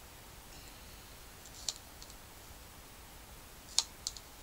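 A few short, sharp clicks at uneven intervals as a Pathfinder Scout fixed-blade knife slices through a lemon and knocks on the surface beneath it. The loudest click comes a little before the end.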